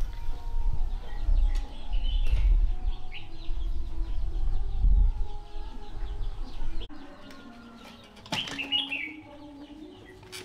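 A low rumble, like wind or handling noise on the microphone, runs for about seven seconds and cuts off suddenly. Birds chirp through it, with a sharp knock and a short bird call near the end.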